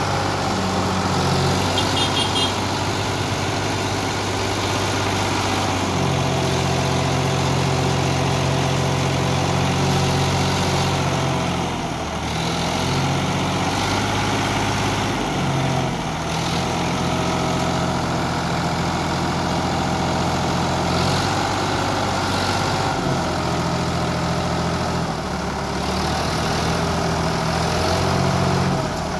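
Sonalika DI 750 tractor's diesel engine running steadily while its hydraulics tip the trailer to dump a load of soil, the engine note shifting a few times.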